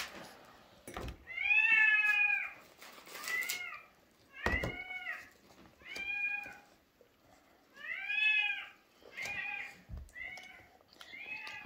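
A cat meowing again and again, about eight meows of half a second to a second each, each rising and then falling in pitch, with a few sharp knocks in between.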